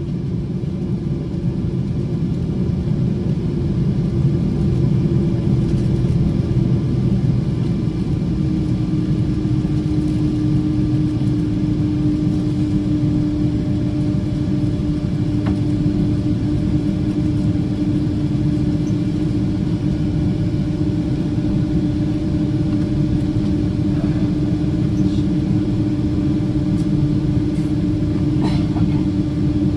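Cabin noise of a Boeing 777-200ER taxiing, its twin jet engines at low thrust: a steady low rumble with a hum that drops slightly in pitch and grows louder about eight seconds in.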